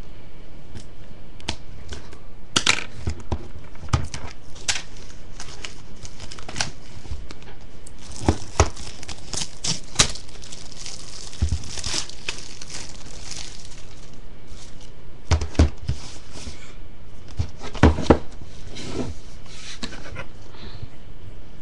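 Plastic shrink-wrap being torn and crinkled off a DVD box set, with sharp clicks and knocks as the packaging is handled; the densest crinkling comes near the middle.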